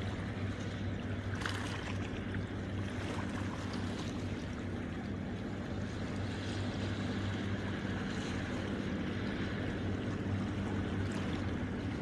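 Small sea waves lapping and splashing against shoreline rocks, with a few slightly louder splashes, over a steady low motor hum.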